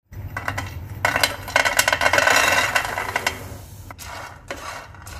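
Black chickpeas rattling and scraping in a non-stick frying pan as they are stirred with a wooden spatula. It is loudest and busiest between about one and three seconds in, then quieter.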